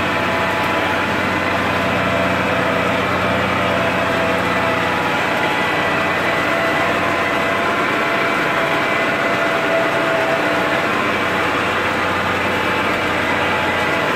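MTZ 1221.5 tractor's diesel engine running steadily, heard from inside the cab while pulling a subsoiler through the field.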